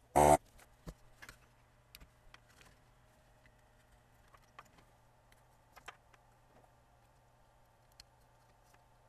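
A short burst from a desoldering tool's vacuum pump just after the start, as solder is sucked from a capacitor joint. Then scattered light clicks and taps as the old capacitors are worked loose from the power supply board, over a faint steady low hum.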